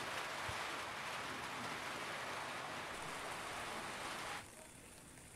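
Steady hiss of rain, which drops away suddenly about four seconds in, leaving a fainter hiss.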